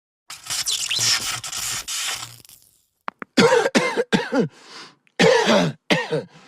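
A breathy hiss lasting about two seconds, then two quick runs of short, voiced coughs, each with a falling pitch.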